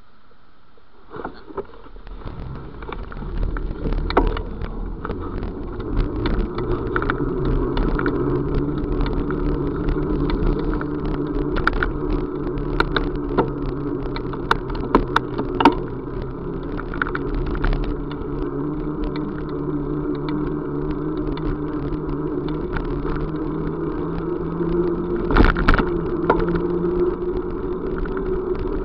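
A vehicle in motion, heard from on board: a steady motor hum with running noise and scattered rattles and clicks. It comes in about a second in and builds over the next few seconds, and the hum rises slowly in pitch over the last several seconds as the vehicle speeds up.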